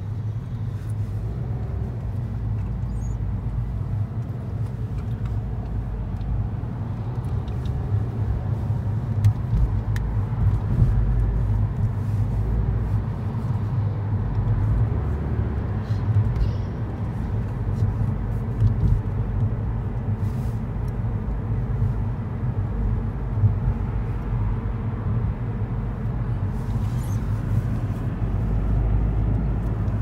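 Steady low road rumble inside a moving car's cabin, the engine and tyres running at traffic speed.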